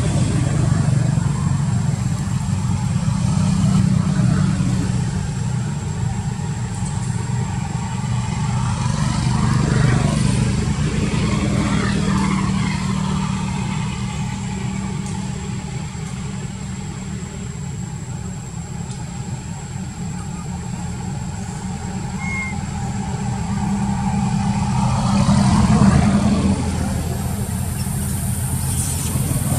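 Steady low hum of motor vehicle engines, with vehicles passing by, swelling louder about ten seconds in, again a couple of seconds later and near the end.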